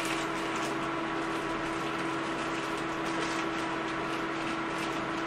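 Steady hum with a continuous hiss under it, unchanging throughout.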